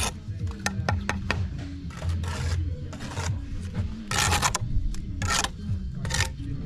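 Steel brick trowel scraping lime mortar off the joints of a brick pier: a series of about five short rasping scrapes, the longest about four seconds in, with light clicks of the blade against the bricks.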